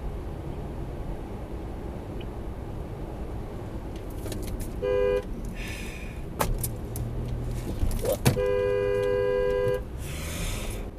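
Car horn sounding from a car that is braking in traffic: a short toot about five seconds in, then a longer blast of over a second about eight and a half seconds in, both on the same two-note pitch. Steady road and engine rumble inside the cabin runs underneath, with a couple of sharp clicks between the honks.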